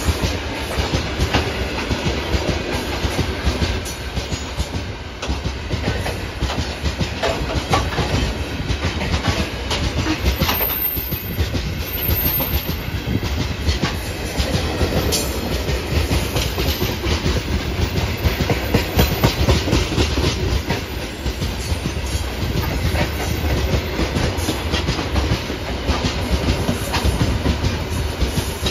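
Freight train of open gondola wagons rolling past close by: a steady wheel-on-rail rumble with the clickety-clack of wheels over rail joints.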